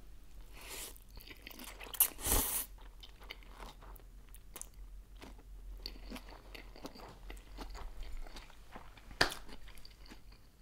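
Close-miked eating of a cold noodle salad with vegetables. A loud noisy slurp comes about two seconds in, then steady chewing with small wet clicks and crunches.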